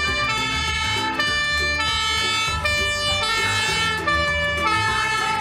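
Fire engine's two-tone siren sounding, switching between high and low tones in steps a little under a second long.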